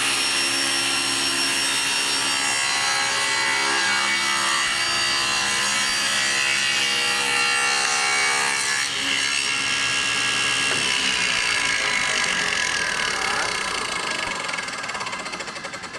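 Table saw running and ripping a board, the blade cutting through the wood. Partway through, the cut ends and the saw is switched off, and the sound fades as the blade spins down toward a stop.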